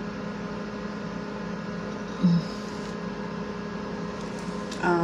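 Steady electrical hum made of several fixed tones, with a short low blip about two seconds in and a brief voice-like sound near the end.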